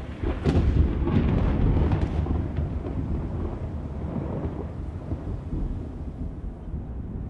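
A deep boom that sets in sharply about half a second in, followed by a long low rumble that slowly fades away.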